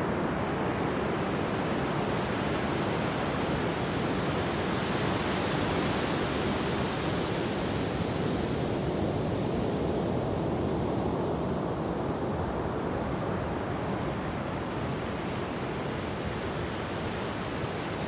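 Ocean surf breaking and washing up a sandy beach: a steady rushing hiss that swells about five seconds in as a wave runs up the sand, eases off, and begins to build again near the end.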